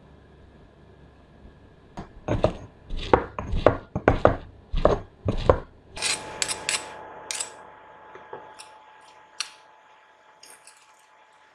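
Stone pestle pounding shallots in a granite mortar: a run of about nine heavy thuds, roughly three a second. Then a metal spoon scrapes the pestle and stirs the mortar, with lighter clinks and scrapes on the stone.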